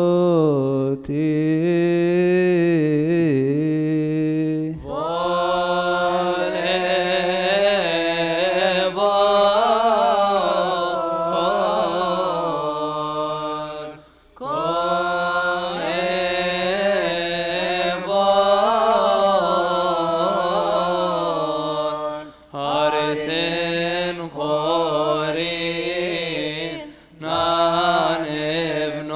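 Coptic Orthodox liturgical chant sung by men's voices in long, winding held notes, with short pauses for breath about 14 and 22 seconds in.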